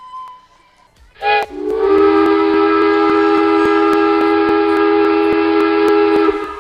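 Train horn blown: a brief toot, then one long chord of several steady tones lasting about five seconds that cuts off sharply.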